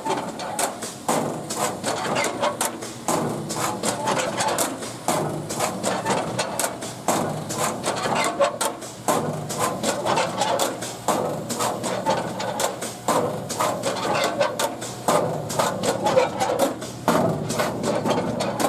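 Irregular clicks, taps and rubbing from hands handling an Ishida computer scale.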